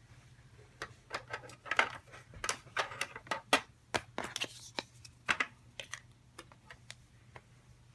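Small plastic toy pieces from a Shopkins smoothie truck playset being handled and set in place: a quick, irregular run of clicks and taps that thins out near the end.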